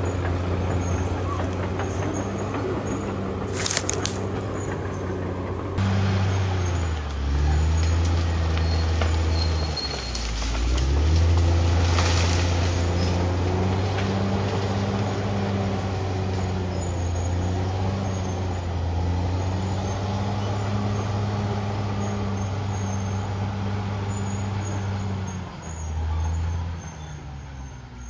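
CAT D6R XL crawler bulldozer's diesel engine running under load. Its pitch sags about a third of the way in and picks up again, with a brief sharp hiss about four seconds in, and it drops off near the end.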